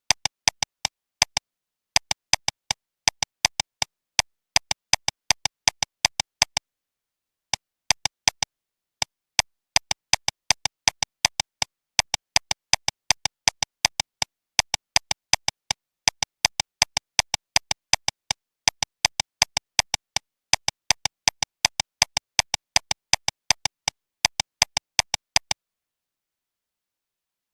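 Sharp, dry clicks repeating in irregular clusters of about four to six a second, with dead digital silence between them, stopping shortly before the end.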